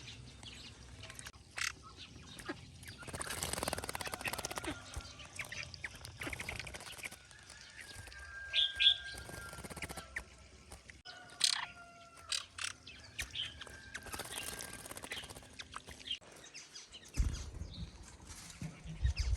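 Birds chirping in scattered short calls, with a few thin held whistled notes, bursts of rustling, and a low rumble near the end.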